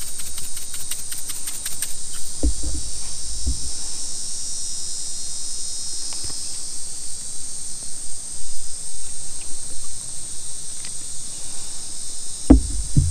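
Steady high-pitched buzzing of an insect chorus. A fast rattle of a seasoning shaker runs through the first two seconds, and a few dull thumps come from handling.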